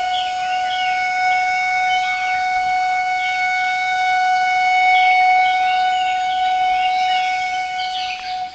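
Background music: one long, steady wind-instrument note held throughout, with bird chirps mixed in over it.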